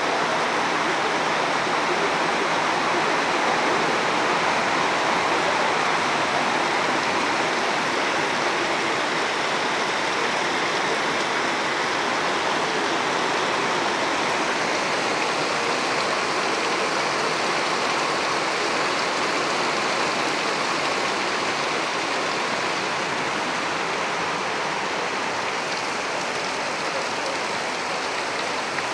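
Heavy rain pouring down: a steady, unbroken rushing hiss of falling water that holds at one level throughout.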